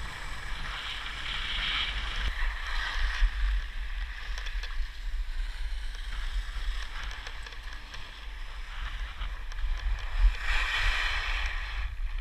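Skis sliding and scraping over packed snow during a downhill run, with wind buffeting the microphone as a constant low rumble. The scraping swells about a second in and again near the end.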